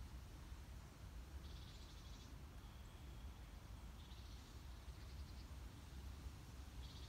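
Quiet outdoor ambience: a short, high, buzzy trill repeats about every two to three seconds, three times, over a faint low rumble.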